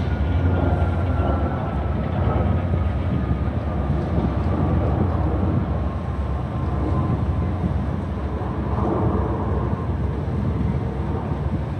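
Ship engines running with a steady low rumble over the wash of churning water, with a faint whine slowly falling in pitch.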